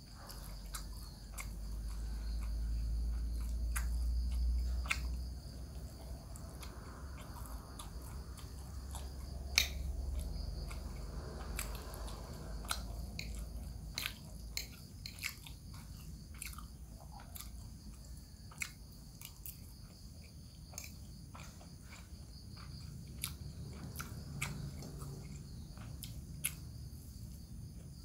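A person eating rice with sayur rebung (bamboo-shoot vegetable dish): chewing, with many sharp clicks of a metal spoon against the bowl. Crickets chirp steadily behind, and a low rumble swells and fades in the first five seconds.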